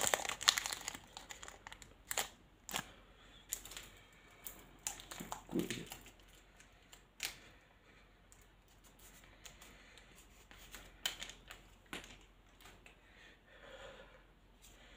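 Foil wrapper of a Pokémon card booster pack crinkling and tearing as it is pulled open, densest in the first second. After that, scattered light ticks and rustles that grow sparse in the second half.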